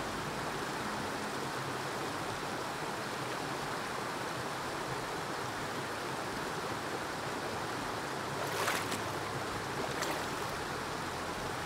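Shallow mountain stream running steadily over a gravel bed. About eight and a half seconds in there is a brief rustle, and a sharp tick about a second and a half later.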